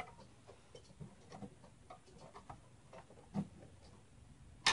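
Faint, irregular small clicks and taps of screws and metal parts being worked into a mini-ITX computer case, with a soft knock about three and a half seconds in.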